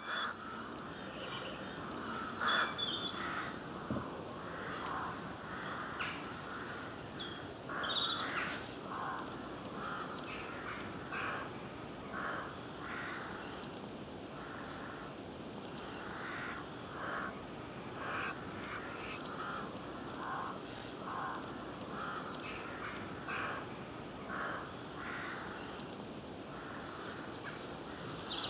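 Woodland birds calling: a long run of short, repeated calls, one every second or so, with higher chirps from small birds now and then.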